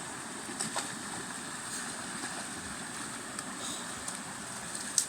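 Steady rushing of flowing river water, with a few faint clicks under a second in and again near the end.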